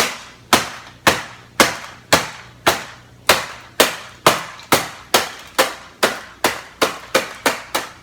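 Repeated sharp blows striking an inkjet printer's housing, about two a second and speeding up near the end.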